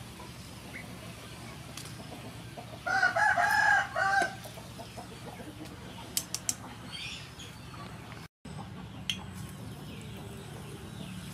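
A rooster crows once, about three seconds in, the loudest sound here, over the steady sizzle of potato balls deep-frying in oil. A few short sharp clicks follow a couple of seconds later.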